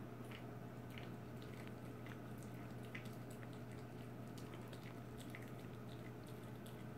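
Toy poodle chewing: faint, scattered wet clicks and ticks over a steady low hum.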